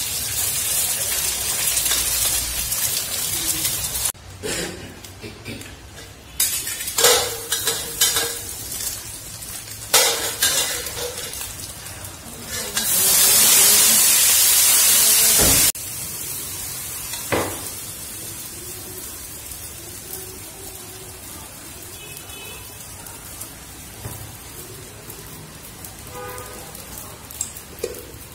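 Food sizzling in hot oil in a pan, in a series of short stretches, with metal utensils scraping and clattering against the pan. The loudest, steadiest sizzle comes a little past the middle and stops abruptly.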